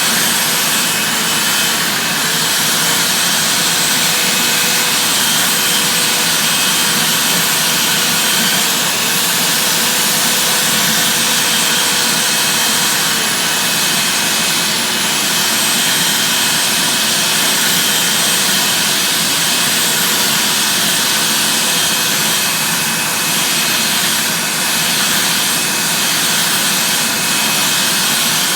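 Vacuum cleaner running steadily with a high whine, together with a corded electric drill spinning a drill brush on car carpet, its motor pitch wavering slightly under load.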